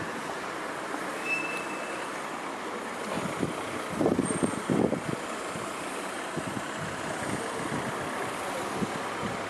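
Stormy outdoor wind noise: a steady hiss with a few strong gusts buffeting the microphone about four to five seconds in.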